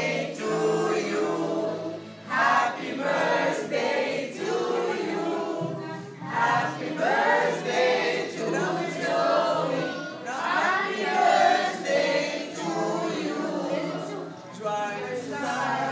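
A group of voices singing together in chorus, in phrases that run on without a break.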